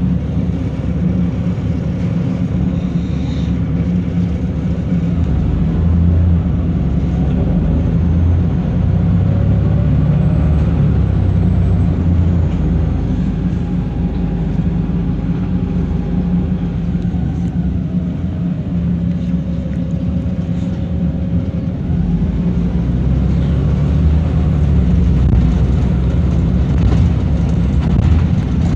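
Wright Eclipse single-deck bus on the move, heard from inside the passenger saloon: a steady engine and drivetrain rumble, with fainter whining tones that rise and fall as the bus picks up and eases off speed.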